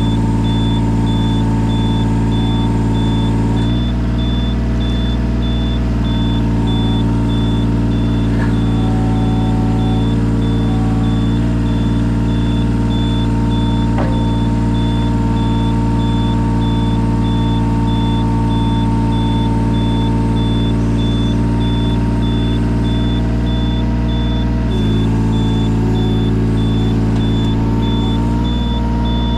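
Yanmar 017 mini excavator's three-cylinder diesel engine running steadily, its note shifting under load about four seconds in and again near the end, with a high beep repeating evenly throughout.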